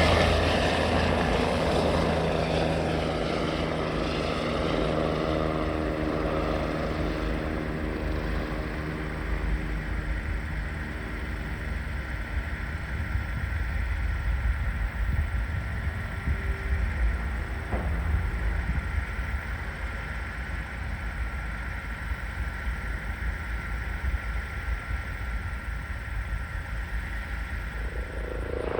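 Propeller airplane engine droning away into the distance, its tones fading over the first several seconds. A lower, uneven rumble carries on to the end.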